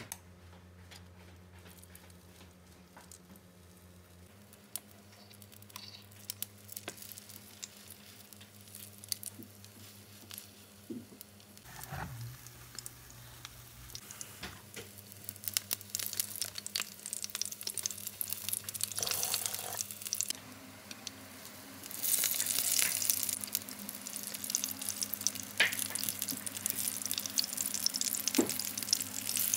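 Fish patties frying in hot oil: a sizzle dotted with small crackles that grows louder from about halfway and steps up sharply about three-quarters of the way through. A steady low hum runs underneath.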